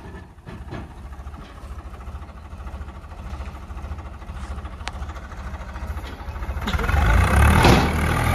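Swaraj 855 tractor's diesel engine running steadily at low revs, then revving up hard about seven seconds in as the throttle is opened to pull the hitched trolleys.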